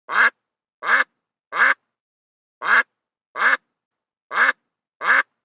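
A duck quacking: seven short, separate quacks in an uneven rhythm.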